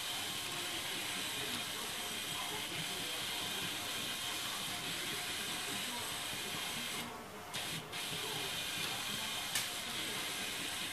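Steady whirring hiss of the mecanum-wheel robot's electric drive motors and rollers as it drives, cutting out briefly twice about seven to eight seconds in. A single sharp click comes about a second and a half later.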